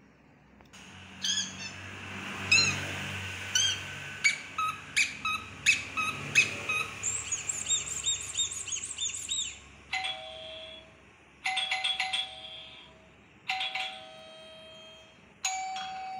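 Birds chirping rapidly with sharp clicks for about nine seconds. Then a two-tone ding-dong doorbell chime rings four times, high note then lower note, about every two seconds.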